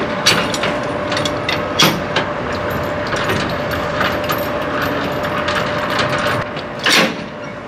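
Semi-trailer landing gear being wound by its hand crank, with several sharp metal clanks from the crank and gear, the loudest near the end as the handle is stowed. A steady engine hum runs underneath. This is the landing gear being lowered before the trailer is uncoupled.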